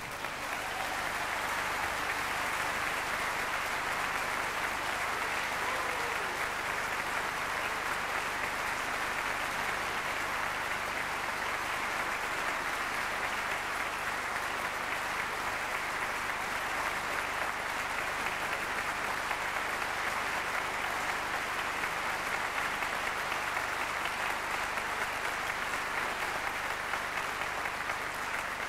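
A large concert audience applauding steadily, greeting a singer's entrance on stage.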